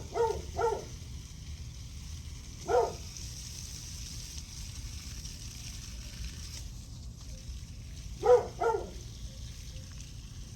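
A dog barking in short, sharp barks, separated by pauses: a quick pair at the start, a single bark a little later, then another quick pair near the end.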